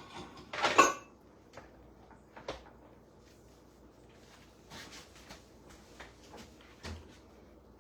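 Kitchen handling noises: a sharp clatter a little under a second in, then a few scattered light knocks and taps as dishes and utensils are moved about.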